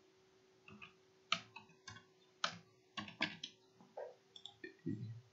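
Computer keyboard keys clicking in an irregular run of strokes as a command is typed, over a faint steady hum.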